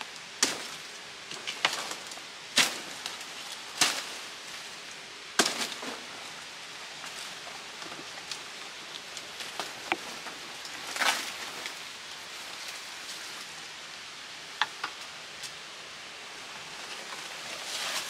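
A blade chopping through leafy undergrowth: five sharp strikes in the first six seconds, then scattered lighter cracks and a rustle of leaves, over a steady hiss.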